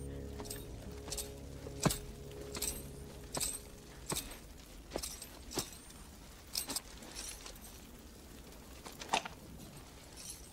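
Slow boot footsteps with spurs jingling at each step, one step roughly every half second to second, spacing out after the first few seconds. A held music chord under them fades out about four seconds in.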